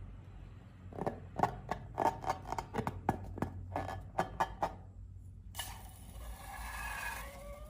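Slime being squeezed and worked by hand, giving a quick run of about a dozen sharp, sticky clicks and pops. About two seconds before the end it cuts abruptly to a different sound with wavering squeaky tones.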